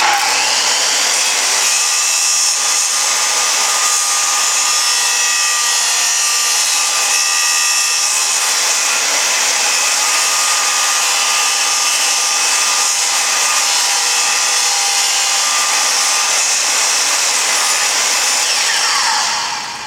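Circular saw running and cutting wood, trimming the edge of a wooden disc as it is turned against the blade. The sound starts abruptly, holds steady, then winds down with a falling pitch near the end.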